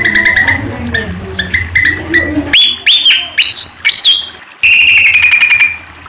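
Malaysian pied fantail (Rhipidura javanica) singing: quick squeaky chirps, then a run of loud, sharply rising whistled notes about halfway through, ending in a fast high trill of about a second. A low background hum sits under the first half and stops as the whistles begin.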